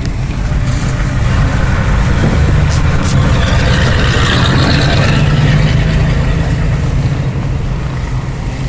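Blizzard wind blowing hard, swelling to a gust around the middle, over the steady low hum of an idling car engine. Two light clicks come about three seconds in.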